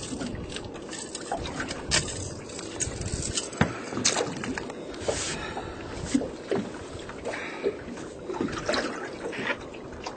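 Water sloshing and splashing against a fishing boat, with scattered knocks and clatter on deck.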